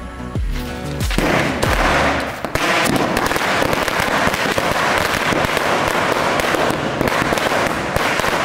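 A 100-shot string of firecrackers (a '100 wala') going off in a rapid, continuous crackle of small bangs, starting about a second in.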